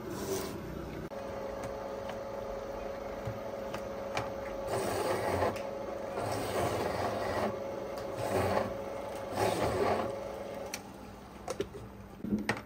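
Stainless-steel electric juicer running with a steady whine, grinding fruit pressed down its chute in several rasping bursts as it juices oranges. The motor cuts off near the end, followed by a few sharp clicks.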